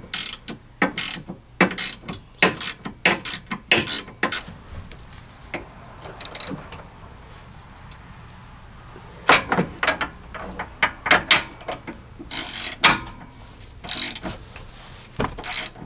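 Hand socket ratchet clicking in short, uneven strokes as a tow hook mounting bolt is tightened in a cramped spot, mixed with light metal clinks of the socket. The clicking stops for a few seconds near the middle, then resumes.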